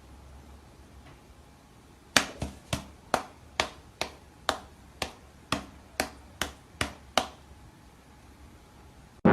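A run of about a dozen sharp clicks, roughly two a second, starting about two seconds in and stopping a little after seven seconds.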